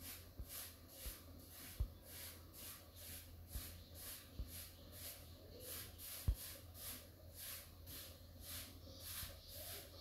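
Faint room noise with a low steady hum and a hiss that pulses about three times a second, broken by a few soft thumps, the loudest a little under two seconds in and about six seconds in, of the kind a phone's microphone picks up from fingers tapping and handling the phone.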